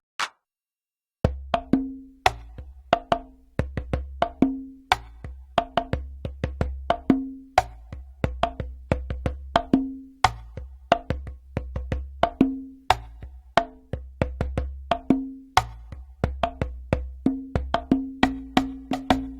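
Conga drum loop: a fast, evenly repeating pattern of pitched drum hits over a low boom. It starts about a second in, after a few lone hits and a short silence.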